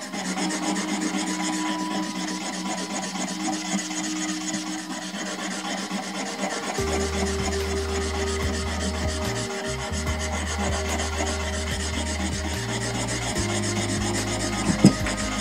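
A woodcarving chisel being sharpened by hand on a small wet whetstone: the edge is rubbed back and forth across the stone in rapid strokes, a steady gritty scraping.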